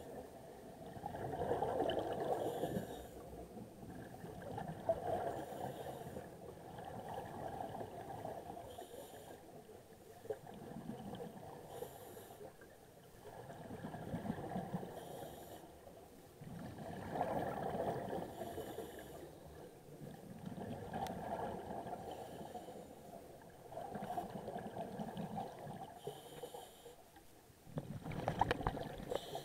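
A scuba diver breathing through a regulator, heard underwater: the hiss of each breath in and the rush of exhaled bubbles, repeating every three to four seconds.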